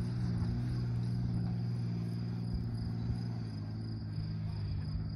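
Off-road jeep's engine running with a steady low hum as it drives away down a rough dirt track. A steady, high insect trill sounds over it.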